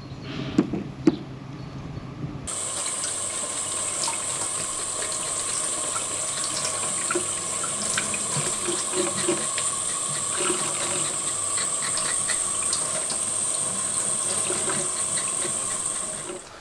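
Two sharp knocks, then a tap starts suddenly, running hard into a stainless steel sink while an abalone is cleaned under the stream with a knife, with small scraping clicks; the running water stops just before the end.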